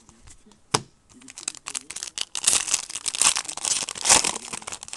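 A single sharp tap about a second in, then a foil trading-card pack being torn open and crinkled for the next few seconds.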